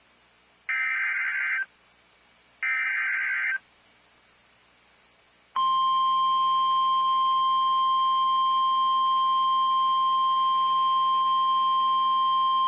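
Two harsh digital data bursts of an Emergency Alert System (SAME) header, each about a second long, then from about five and a half seconds in the steady single-pitch 1050 Hz NOAA Weather Radio warning alarm tone. Together they mark the start of a new warning broadcast.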